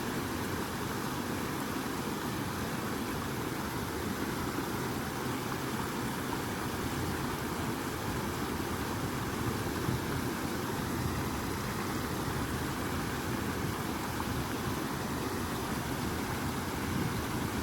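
Flowing water rushing steadily, an even wash of noise with no breaks.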